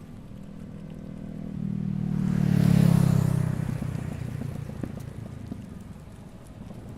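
Honda CBR500R's parallel-twin engine through a Leo Vince GP Corsa exhaust with the dB killer removed, riding past: it grows louder as the bike approaches, peaks about three seconds in, then fades as it moves away.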